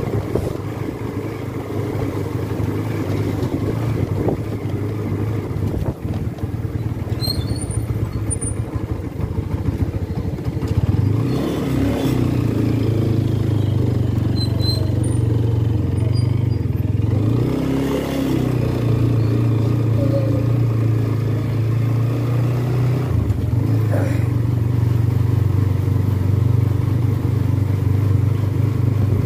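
Small motorcycle engine running steadily under way, its pitch rising and falling a few times as it speeds up and slows.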